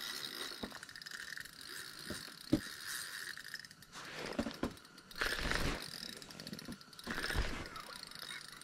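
Spinning reel's gears and drag ticking under the strain of a hooked large lake trout, with some rustling and knocks as the rod and jacket are handled.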